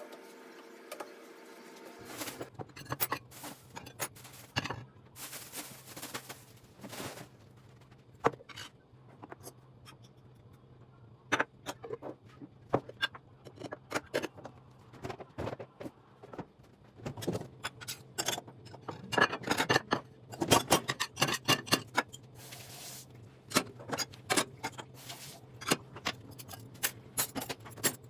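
Household objects being handled: irregular clicks, knocks and clatter with a few brief swishes, over a steady low hum.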